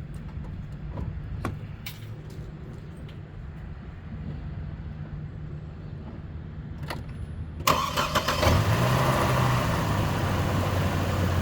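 A car engine starts about two-thirds of the way in and settles into a steady idle, after a few sharp clicks and a low hum.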